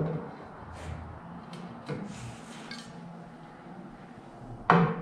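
Clunks and knocks of a snowmobile ski's carbide runner being handled and fitted against the ski, a few separate knocks with the loudest near the end.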